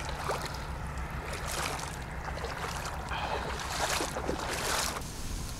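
Splashing and sloshing of shallow water as someone wades, in a few surges, the longest about three seconds in, over a low steady rumble.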